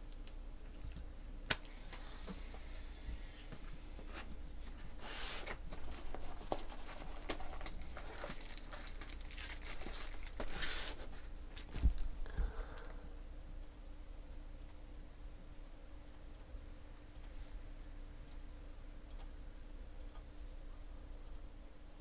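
Hands handling trading cards and plastic card holders: scattered faint rustles and light clicks, with a thump about twelve seconds in.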